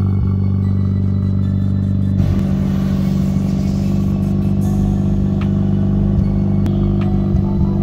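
Mazda RX7 FD3S's twin-turbo 13B-REW two-rotor rotary engine idling steadily.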